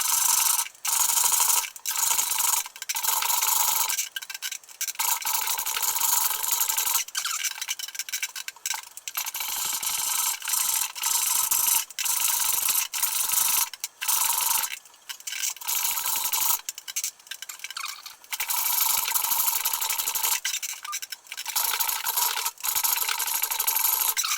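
A turning tool shearing a green-wood bowl blank on a pole lathe, in a scraping, rasping stroke about once a second. The stroke stops and starts because the lathe cuts only while the treadle drives the work toward the tool.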